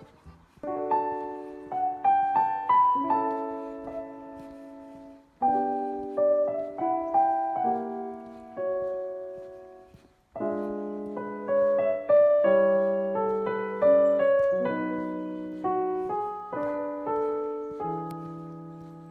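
Solo piano music: phrases of struck notes and chords that ring and fade, with two short breaks between phrases, about five and ten seconds in.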